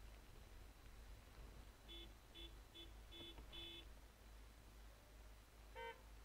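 Faint car horns tooting. One horn gives about five short toots in the middle, and a higher-pitched horn sounds two short blasts near the end.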